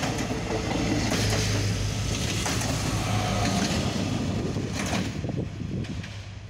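SA133 diesel railbus passing close by at speed: a steady low engine hum over rushing wheel and air noise, with a few sharp clacks. The sound fades after about five seconds as the train pulls away.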